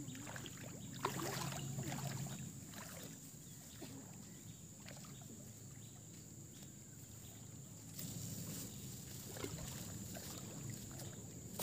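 Water lapping and splashing, with scattered small knocks.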